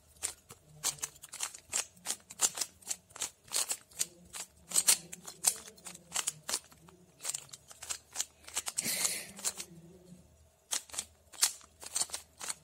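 Stickerless 3x3 Rubik's cube being turned fast in the hands: an irregular run of sharp clicks as the layers snap round, several a second, with a short rustle about nine seconds in.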